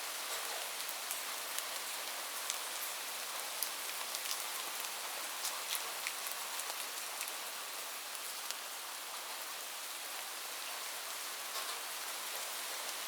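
Steady rain falling, an even hiss with individual drops ticking sharply on a near surface every so often.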